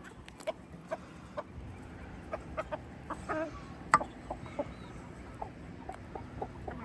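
Chickens clucking in short scattered calls while eating treats, with light pecking clicks and one sharp tap about four seconds in.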